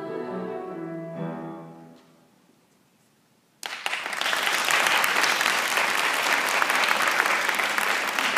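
A choir's final held chord dies away about two seconds in, and after a short silence the audience breaks into sudden, steady applause, the loudest sound.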